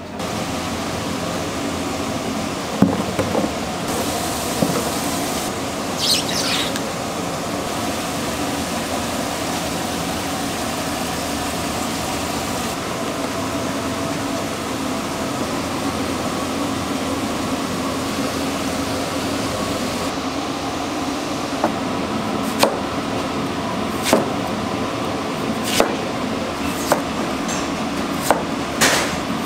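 Steady mechanical hum of kitchen machinery, with scattered sharp knocks and clicks through the last several seconds.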